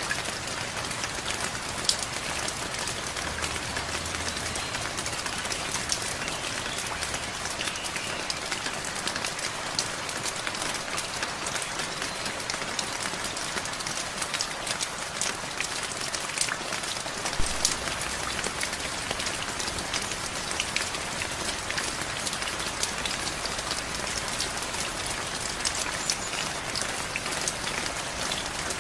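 Steady rain falling on a surface, an even hiss with many individual drops ticking through it.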